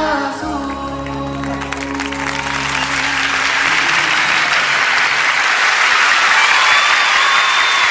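A band's last held chord fading out as a studio audience breaks into applause; the clapping swells from about two seconds in and fills the rest.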